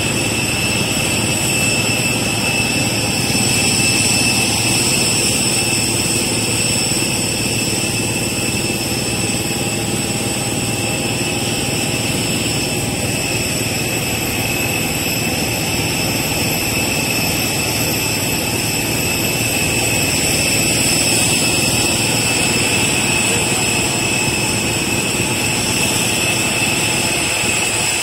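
Steady jet turbine noise: a loud, even roar with several high, steady whining tones that hold without change.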